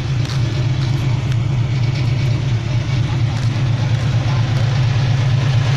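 Diesel engine of a loaded, customised dump truck with a wide straight exhaust pipe, running steadily at low revs with a low, even sound.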